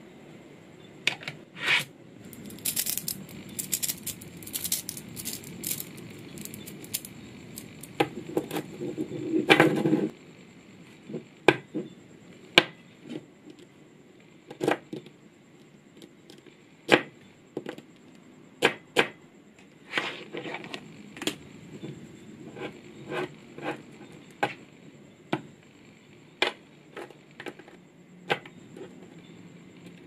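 Small magnetic balls clicking and snapping together as hands press and pull them into place, in sharp separate clicks at irregular intervals. About eight seconds in there is a longer, louder rattling scrape as a mass of balls shifts.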